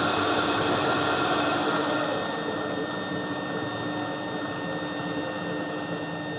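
Motor-driven permanent-magnet generator test rig running with a steady hum and high whine. It grows a little quieter from about two seconds in, and a thin high tone cuts out near the end.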